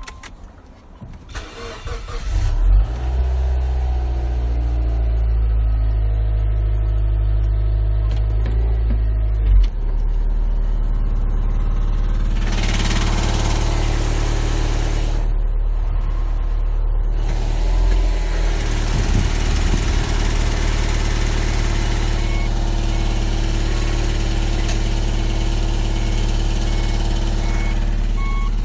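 Subaru Legacy BL5's flat-four engine starting about two seconds in, then idling fast and settling to a lower, steady idle about ten seconds in. A rushing noise comes over it twice in the middle.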